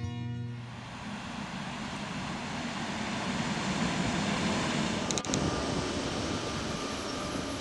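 ER9M suburban electric train running, a steady rumble, with a brief clicking about five seconds in and a faint high whine after it.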